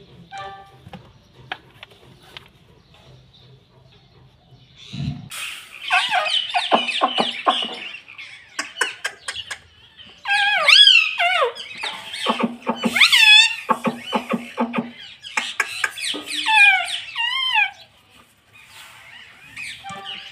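Indian ringneck parakeets calling: after about five seconds of faint clicks and a low thump, a long run of harsh chattering and wavering screeches that rise and fall in pitch, dying away near the end.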